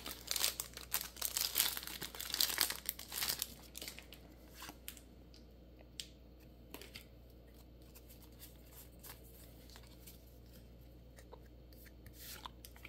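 A Pokémon booster pack's foil wrapper being torn open and crinkled by hand for the first three and a half seconds. After that it is mostly quiet, with a few faint clicks of cards being handled and a short rustle near the end.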